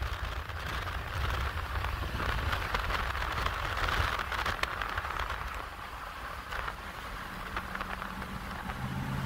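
Steady rushing road and wind noise from a car pacing a freight train of rail-carrying flatcars, over a low rumble with a few scattered clicks.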